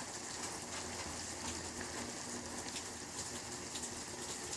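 Steady background hiss with scattered light ticks, and no thunder heard from the distant lightning.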